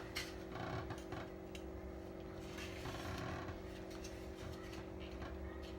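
Scattered light clicks and knocks of TV parts being handled and fitted back together during reassembly, over a steady low hum.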